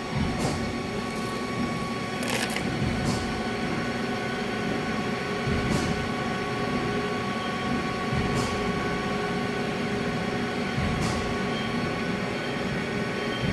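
Haas DT-1 CNC drill/tap machining centre running, a steady mechanical whine of several fixed tones over a rumble, with a few short sharp clicks scattered through it.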